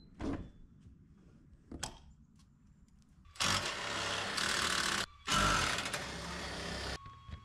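A thunk, then the camper trailer's scissor stabilizer jacks being wound up: two steady mechanical runs of about a second and a half each, starting and stopping sharply, as the trailer is made ready for towing.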